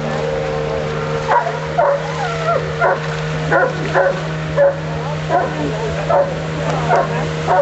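A dog yelping and whining in short, high, bending calls, about a dozen of them at roughly two a second, over the steady hum of an inflatable boat's outboard motor.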